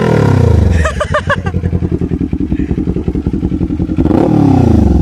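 Kawasaki Z400 parallel-twin engine idling with its muffler removed, sounding through the bare header pipe. A throttle blip dies away at the start and another comes about four seconds in, with a slip-on muffler held up to the outlet.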